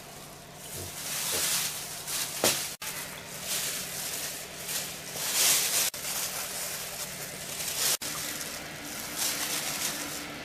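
Thin plastic bag and disposable plastic gloves rustling and crinkling in irregular spells, over a faint steady hum.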